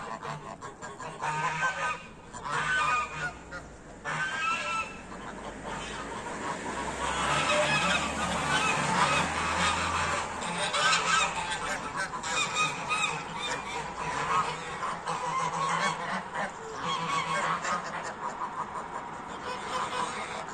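A flock of domestic geese honking, many calls overlapping, getting busier and louder a few seconds in.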